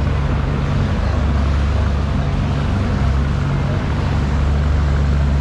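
Steady low machinery drone with a rushing noise over it.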